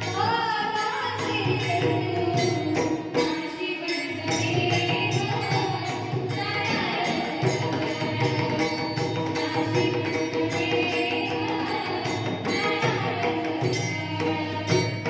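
Warkari devotional song: a solo voice sings a wavering melody over a hand drum and jingling hand cymbals keeping a steady beat.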